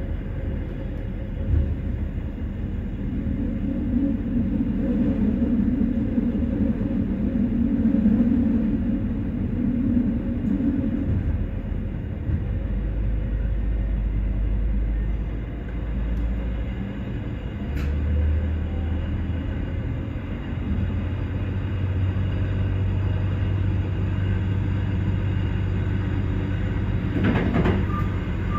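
Diesel railcar running along the line as heard from the driver's cab: a steady engine rumble whose note shifts a few times, with a sharp click about two-thirds of the way through.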